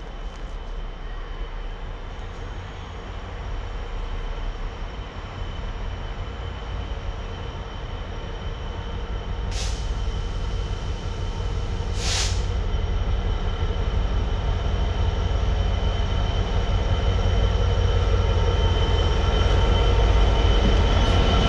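GB Railfreight Class 66 diesel locomotive, its EMD two-stroke V12 running, approaching light with a Class 92 electric locomotive in tow, growing steadily louder as it draws in. Two brief hissy bursts come about ten and twelve seconds in, and a squeal starts near the end as it slows to stop at a red signal.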